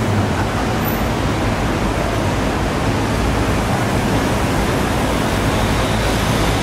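Steady city street traffic noise: an even rush of passing cars.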